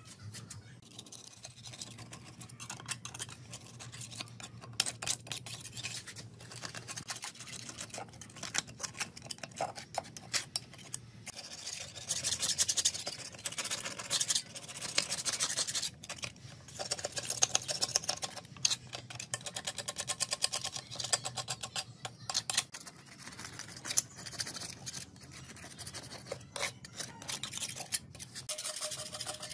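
A metal-bladed paint scraper scraping flaking old green paint and grime off a rusted antique lathe casting, in many quick repeated strokes that come in bursts.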